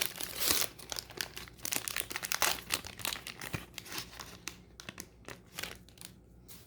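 A trading-card pack wrapper being torn open and crinkled, a dense crackling that is loudest at the start and dies away over the last few seconds.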